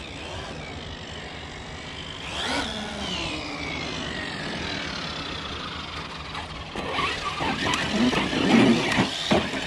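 Traxxas X-Maxx 8S RC monster truck's brushless electric motor whines up in pitch about two and a half seconds in, then falls in a long glide as the truck slows. Over the last few seconds, knocks and rattling rise as the truck climbs concrete stairs.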